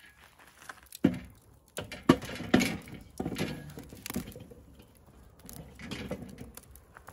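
Steel Santa Maria grill frame and grate being lowered onto and fitted to the rim of a kettle grill: a series of metal knocks and scrapes, the sharpest about one and two seconds in.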